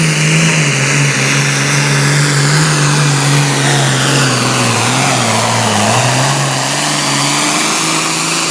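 Super farm class John Deere pulling tractor's turbocharged diesel engine running hard at high revs under load. Its pitch drops a little early on, sags further about five seconds in, then climbs back toward the end.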